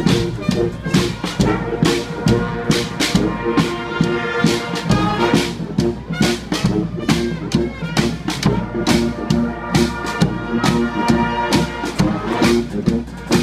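Street brass band playing: trumpets and trombones carrying the tune over a steady drum beat.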